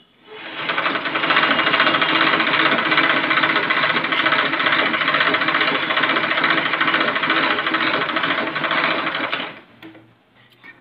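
Household sewing machine stitching a seam through cotton fabric. It picks up speed over the first second, runs fast and steady, and stops abruptly near the end, leaving a few faint clicks.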